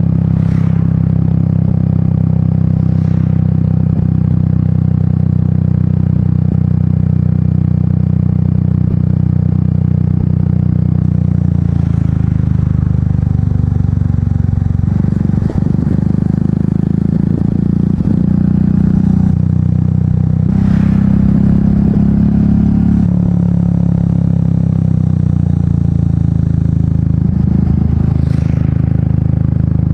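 Royal Enfield Meteor 350's single-cylinder engine running through an aftermarket exhaust while riding, a steady low thump whose pitch shifts several times through the second half as the throttle and gears change. A few brief rushing whooshes come and go over it.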